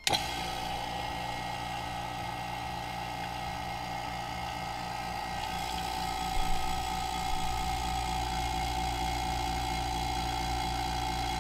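Electric vacuum pump switching on and running steadily, pulling a vacuum on a degassing chamber to draw the air bubbles out of liquid soft-plastic (plastisol); a steady mechanical hum with a constant whine on top.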